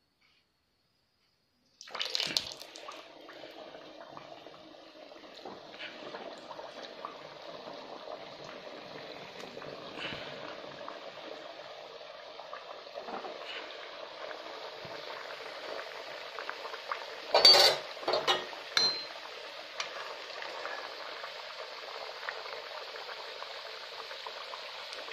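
Kachoris deep-frying in hot oil in a kadhai: a steady bubbling sizzle that starts abruptly with a loud hiss about two seconds in. Later, a brief clatter of the spatula against the pan.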